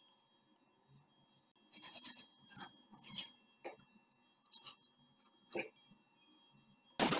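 A handful of short, scratchy scrapes against a steel knife blank, spread over a few seconds. Near the end a loud angle-grinder noise cuts in suddenly.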